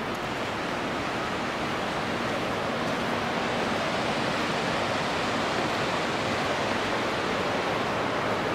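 Steady rush of water from the Capilano River in the canyon below, growing a little louder.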